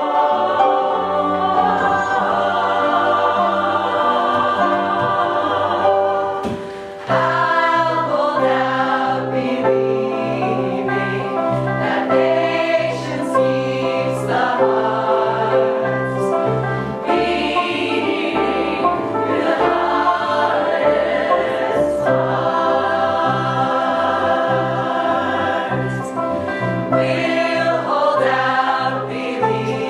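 Choir singing in harmony over an accompaniment. After a short break about seven seconds in, a steady pulsing bass line runs under the voices.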